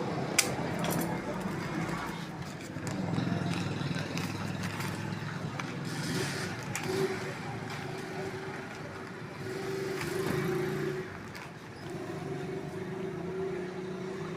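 Steady engine hum that rises and falls in loudness, with a couple of sharp clicks right at the start.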